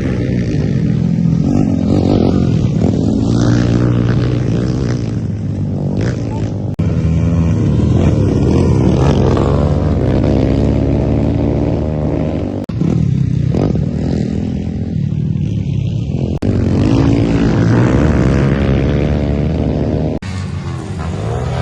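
Off-road motorcycle engine being ridden hard on a race circuit, revving up and dropping back again and again as it accelerates and shifts through the gears, with a few sudden breaks.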